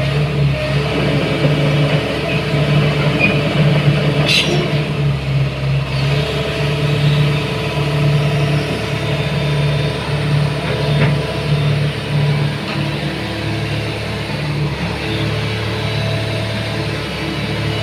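Hitachi ZX110MF excavator's diesel engine running, its note swelling and dropping every second or so, with a brief high squeak about four seconds in.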